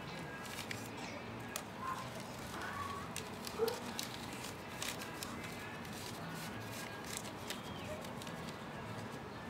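Scattered light clicks and paper rustles as rolled newspaper is handled and lit at the gasifier's ignition port, over a steady low background hiss.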